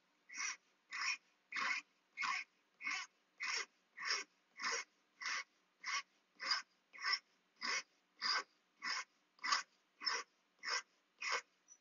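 Hand file rasping back and forth on a wooden ring, shaping its outside: a steady rhythm of short strokes, about one every 0.6 seconds.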